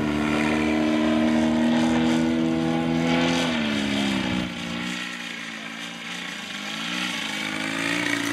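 Engine of a large-scale model Fokker Eindecker in flight, a Valach VM120B2 turning a Fiala 30x12 propeller. The engine holds a steady note, then drops in pitch and fades about halfway through, and swells back up near the end.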